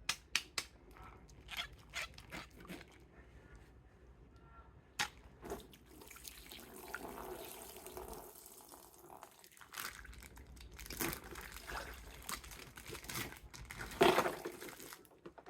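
Plastic toys and packaging being handled: scattered light clicks and taps with stretches of rustling, and a louder knock about fourteen seconds in.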